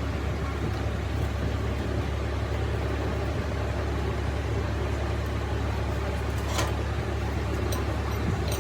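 An engine idling with a steady low hum, with a light click about six and a half seconds in.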